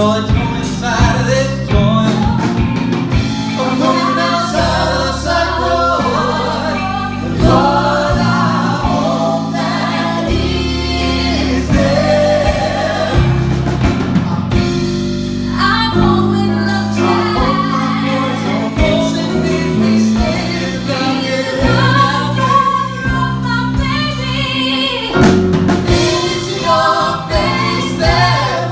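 Musical-theatre song performed live: several voices singing together in a gospel style over a band with bass and drum kit.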